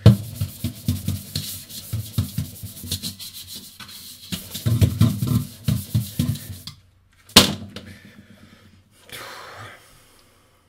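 Knitted beanie rubbing and brushing against the camera's microphone: dense, scratchy rustling for most of the first seven seconds. Then comes a single sharp knock about seven seconds in, and a brief faint rustle after it.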